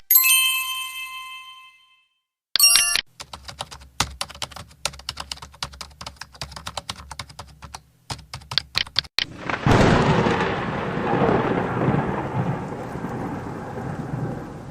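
A sequence of separate sound effects. First a bell-like ding rings and dies away over about two seconds, then a short electronic chirp. Next come several seconds of irregular sharp clicking, and from about ten seconds in a loud thunderclap that rumbles on and slowly fades.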